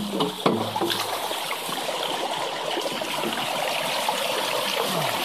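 Pipe-fed water rushing steadily down a gold sluice trough, with a few sharp knocks in the first second.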